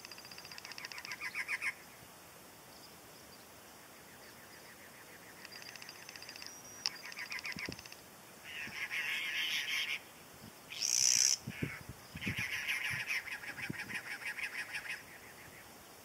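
Cactus wrens singing: about five runs of rapid, harsh, chugging notes repeated evenly for one to two seconds each, with one short louder rasping burst about two-thirds of the way through.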